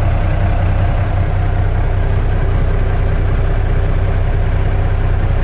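Semi-truck's diesel engine idling steadily, a constant low hum heard inside the cab.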